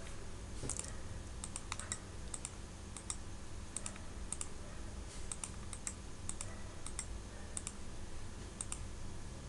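Faint, scattered clicking of a computer mouse and keyboard over a steady low background hum.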